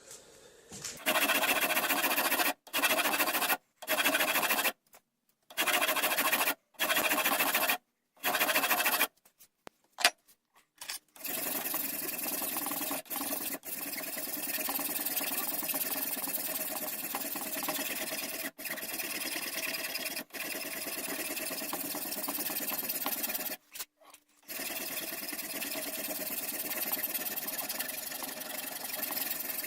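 A small power tool grinding or sanding a horn muzzle end on a rifle stock. It runs in short bursts of about a second each at first, then steadily with a brief pause late on.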